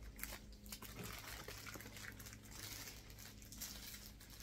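Clear plastic wrapping on a handbag crinkling faintly as it is handled, over a steady low room hum.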